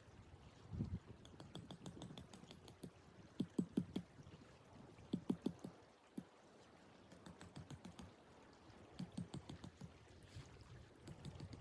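Several short runs of quick, sharp taps and clicks, four or five strikes to a run, with quiet gaps between.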